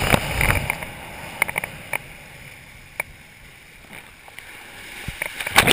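Water rushing and spraying off a slalom water ski as it carves across a lake, heard on a chest-mounted action camera, with scattered sharp ticks of spray hitting the camera. The rush fades down through the middle, then a sudden loud surge of water just before the end.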